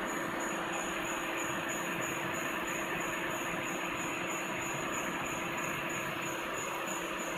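Vacuum emulsifying mixer running, its motors giving a steady mechanical hum and hiss with a high whine that pulses rapidly and evenly.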